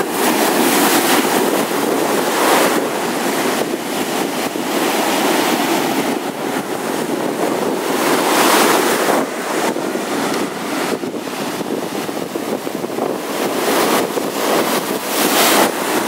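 Baltic Sea surf breaking on a sandy shore at the water's edge: a steady rushing wash of foaming water that swells louder with each breaking wave every few seconds.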